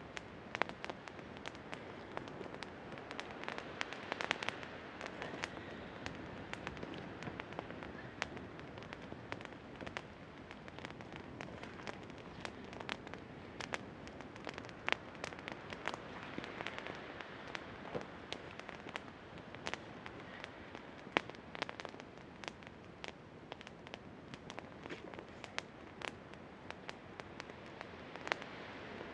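Wood campfire crackling, with many sharp, irregular pops and snaps over a steady hiss.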